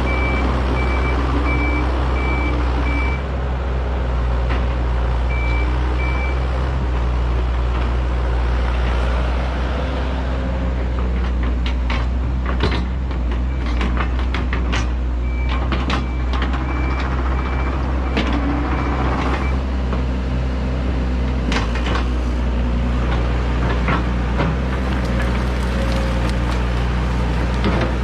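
Heavy diesel machine running steadily, with a backup alarm giving repeated beeps of one pitch, about two a second, at the start, briefly around the quarter mark and again past the middle. Scattered sharp cracks come in from about the middle on.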